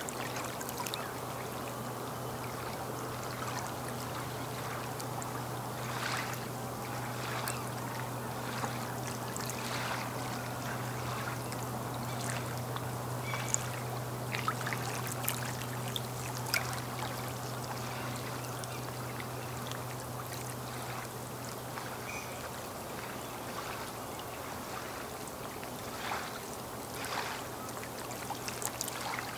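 Small waves lapping and trickling against the lakeshore, with scattered little splashes. A steady low hum lies underneath and fades out about two-thirds of the way through.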